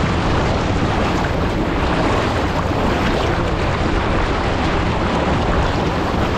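Inflatable boat running fast across open water: heavy wind buffeting on the microphone and water spraying off the hull, over the low drone of its 40 hp Yamaha outboard.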